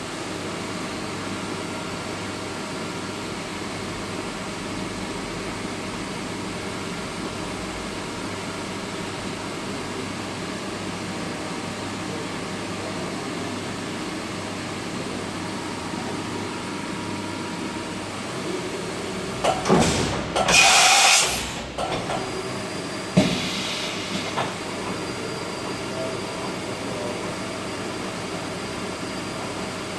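Steady mechanical rumble with faint steady tones. About twenty seconds in, a loud hissing burst lasts about two seconds, and a sharp knock follows a few seconds later.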